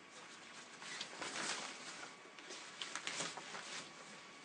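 Rustling of a cloth dust cover as it is pulled off a mixing console, with louder swishes about a second in and again around three seconds in.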